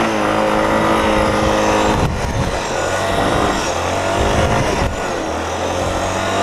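ATV engine running and revving, its pitch rising and falling several times.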